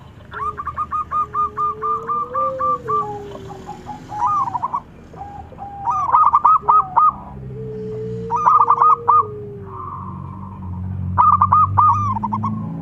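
Zebra doves (perkutut) cooing: a run of quick, short staccato notes, then three dense bursts of rapid cooing. Twice, a long, smooth lower note rises and falls beneath them.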